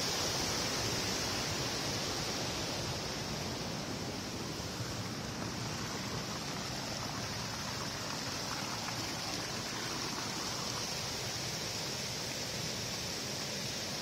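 Water pouring over a small spring-fed waterfall and rushing down a rocky stream below it: a steady, even rush of water.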